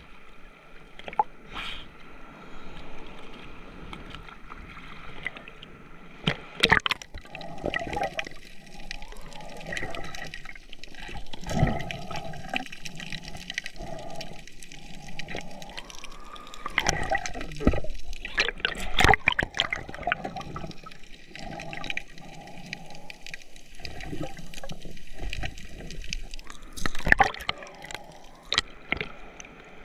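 Sea water sloshing and gurgling close up in the surf, with several sudden louder surges as waves wash through.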